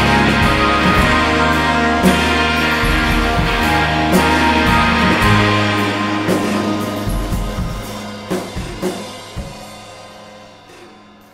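Background music with drums, fading out over the last few seconds.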